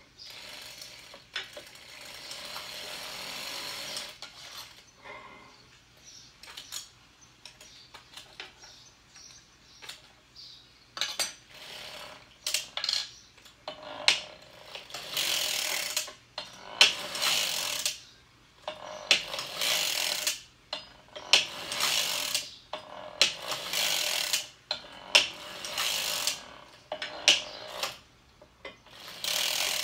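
Hand-cranked circular sock machine: needles and latches clattering through the cams in short strokes, about one every second and a half. This is the crank being worked back and forth for reciprocal heel-tab knitting, with part of the needles raised out of work. Before the strokes there is rustling and a few clicks as fingers handle the knitting in the cylinder.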